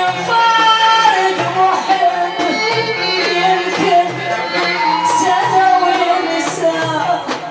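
A woman singing an Iraqi folk song to an instrumental ensemble, with bowed strings carrying the melody and a regular low beat underneath.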